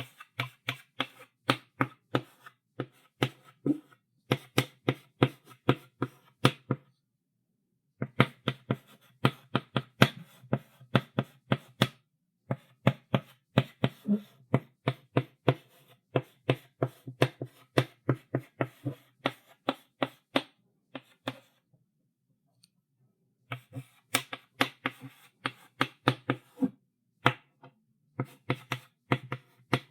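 Chalk on a blackboard: quick, sharp knocks of the chalk striking the board as it writes, about three a second, in runs broken by pauses of a second or two.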